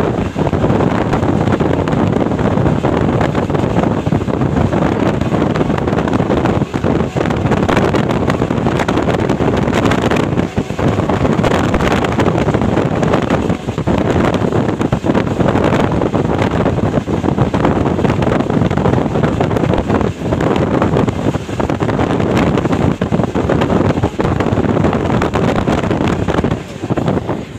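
Passenger train running at speed: a steady rumble of the moving coaches, with wind buffeting the microphone.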